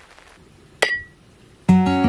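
Faint rain patter that fades out, then a single bright metallic ting with a short ring about a second in. Strummed acoustic guitar music starts near the end.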